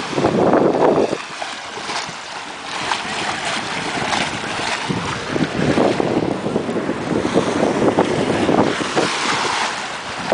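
Wind buffeting the microphone in gusts, strongest in the first second, over the rush of water breaking along the hull of a sailboat under way.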